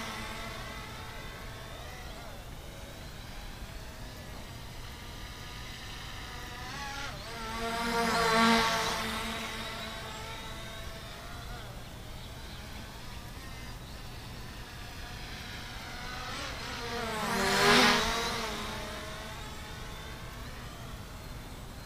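SG-906 foldable brushless GPS quadcopter buzzing as it flies past close by twice, about eight and eighteen seconds in. Each pass swells up and fades, its pitch shifting as it goes by, and a faint steady hum carries on between the passes.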